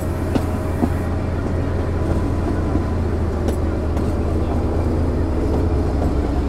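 Narrow-gauge diesel locomotive's engine idling with a steady low rumble. There is one short click about three and a half seconds in.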